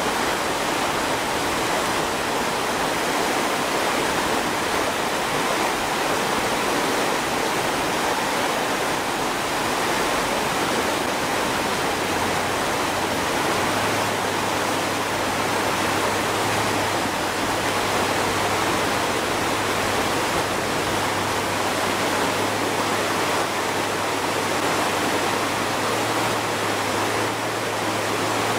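Fast, churning river water rushing steadily. About twelve seconds in, a low steady engine hum joins it as a six-wheeled truck tows a pickup out of the river.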